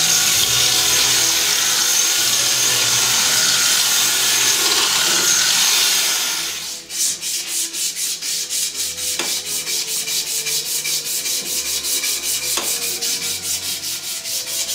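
Angle grinder with a sanding disc sanding a wooden axe handle: a steady hiss with a high whine. About seven seconds in it stops, and a strip of abrasive cloth is pulled back and forth around the handle in quick even strokes, several a second.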